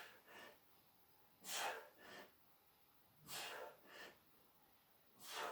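A person breathing hard during sit-up exercise: a forceful breath followed by a shorter one, repeating about every two seconds in time with the reps.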